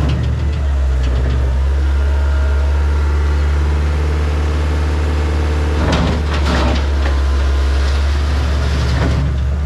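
Skid steer engine running steadily under work, with two short rough noises about six seconds in.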